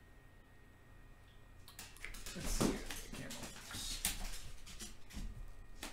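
Handling noise: a run of irregular bumps and rustling that starts about two seconds in as a hand touches the monitor, loudest just after it starts.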